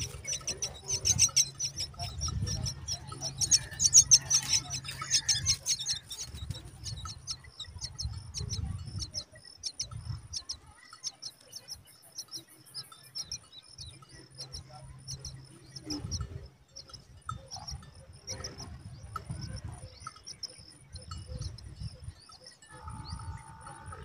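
Common myna nestlings begging: a rapid, high-pitched chatter of many short calls, densest in the first few seconds while the parent is at the nest feeding them, then thinning to scattered calls.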